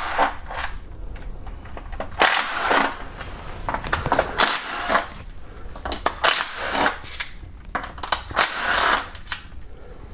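Socket ratchet clicking in a series of short runs, with sharp ticks between, as the bolts of an automatic transmission oil pan are backed out with a 10 mm socket.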